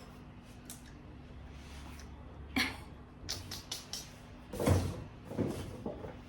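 Objects being handled: a few short knocks and clicks, the loudest a dull thump about four and a half seconds in, after a quiet stretch with a low hum.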